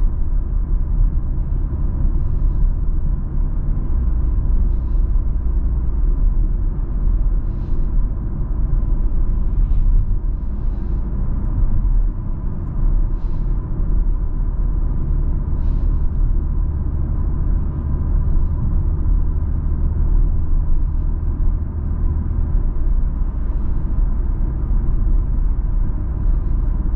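Interior noise of a 2022 BMW X3 M40i cruising on a backroad: the steady low rumble of its turbocharged inline-six mixed with tyre and road noise. The rumble shifts a few times along the way.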